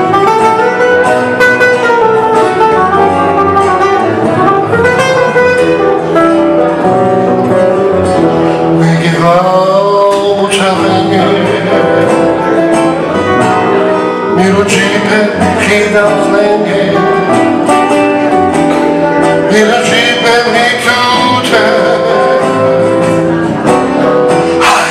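Live Romani music on two acoustic guitars and a plucked double bass, with a man singing in places.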